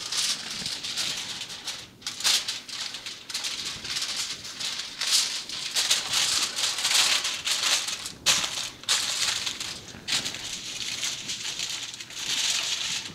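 Aluminium foil crinkling and crackling as it is folded over into a packet, in uneven rustles with brief pauses.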